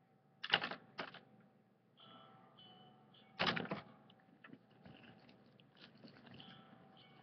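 A few sharp knocks and clatters, the loudest about half a second in, again at about one second and three and a half seconds in, with lighter scattered tapping between.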